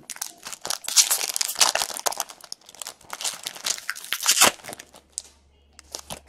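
Foil wrapper of a hockey card pack being torn open and crinkled, crackling for about four and a half seconds, then a few light clicks near the end.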